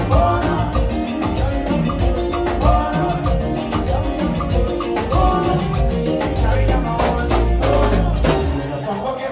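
Live Latin dance band playing at full volume, with drum kit and percussion keeping a steady dance beat under bass and melody.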